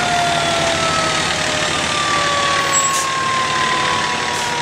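Fire truck driving by with its siren winding down, the siren's pitch falling slowly and steadily over loud engine and road noise.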